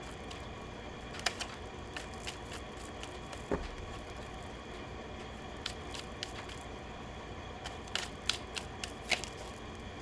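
Tarot cards being handled and shuffled: scattered short clicks and taps over a steady background hiss, with one soft thump about three and a half seconds in.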